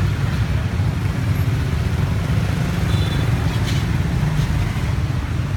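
Outdoor street ambience dominated by a steady low engine rumble of road traffic, with a few faint clicks about four seconds in.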